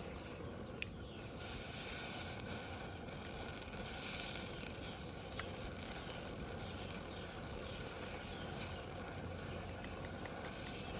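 Shrimp and sauce sizzling steadily in a pan, with two sharp ticks, about a second in and again about five seconds in.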